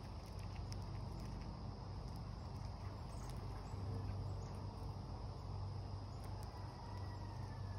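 Faint outdoor ambience: a steady low rumble and an even high insect trill, with scattered soft clicks as an eastern chipmunk husks black sunflower seeds.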